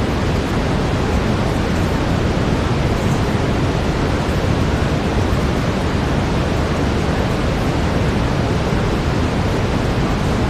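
Steady brown noise: an even, unchanging deep hiss, heaviest in the low end.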